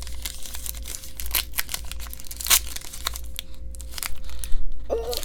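Trading cards and a foil pack wrapper being handled: crinkling, tearing and scraping with many short clicks. A person gives a brief hum near the end.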